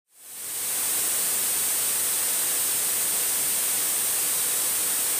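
Steady hiss of a Diamond DA42 cockpit in flight, heavy in the treble with a thin high whine running through it, fading in over the first half second.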